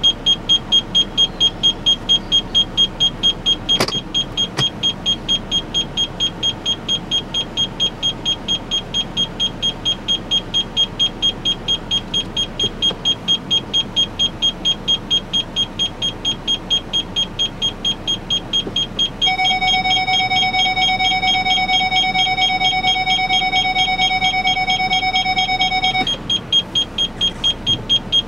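An electronic warning chime in the Ford Explorer's cabin beeps rapidly, about five times a second, without stopping. A click comes about four seconds in. From about 19 to 26 seconds a second, steady continuous tone sounds over the beeping.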